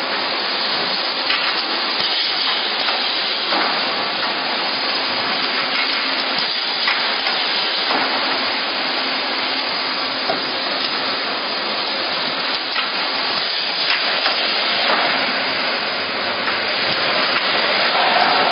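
Shrink-wrapping machine running: the shrink tunnel's hot-air blower gives a steady hissing rush with a faint hum under it, and a few light clicks now and then.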